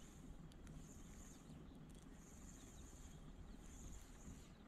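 Near silence: quiet outdoor ambience with a faint high-pitched buzz that comes and goes in stretches of about a second, and a few faint clicks.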